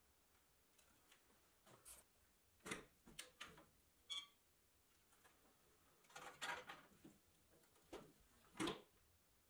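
Sheet-metal sandblast cabinet door being swung and shut, with a series of clunks and clicks from the door and its latch handle. The loudest clunk comes near the end as the latch closes.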